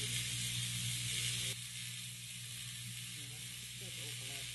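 AC TIG welding arc on 6061 aluminium tubing: a steady buzzing hum with a crackling hiss. The arc cuts off about a second and a half in, leaving a quieter hum.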